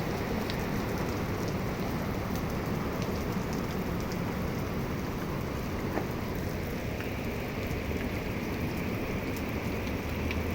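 Heavy rain falling steadily during a severe thunderstorm, a continuous hiss of rain with scattered drop ticks.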